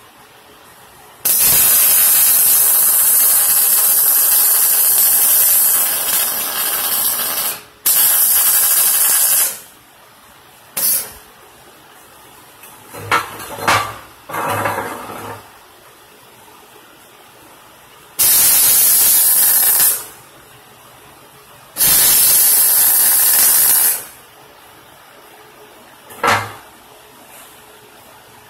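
MIG welder arc sizzling in a string of welds, each starting and stopping abruptly: a long run of about six seconds, then several shorter welds of one to two seconds, with brief tacks between.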